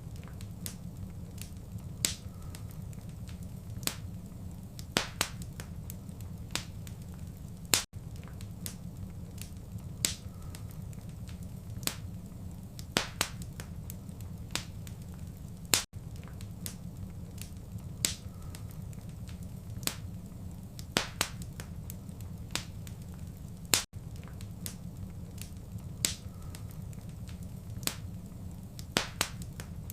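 Wood fire crackling in a fireplace, with sharp irregular pops over a steady low rumble. There are brief dropouts about every eight seconds.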